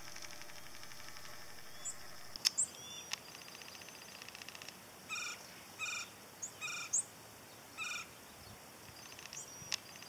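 Harris's hawks calling, juvenile and adult: a long harsh, rasping call through the first half, then four short harsh calls spaced about a second apart. A few sharp clicks and brief high chirps cut in.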